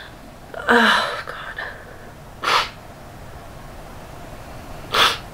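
A woman crying: a shaky, gasping sob about a second in, then two sharp sniffs, one in the middle and one near the end.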